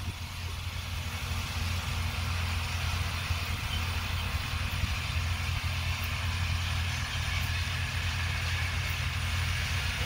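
Farm tractors running steadily while raking and round-baling hay, heard from across the field as a constant low engine hum.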